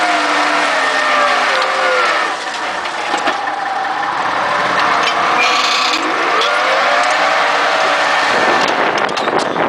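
Massey Ferguson 3085 tractor's diesel engine working under load, pulling an Amazone Catros compact disc harrow through dry soil, over the dense noise of the discs cutting the ground. The engine note falls in the first second or so and climbs again a little past the middle.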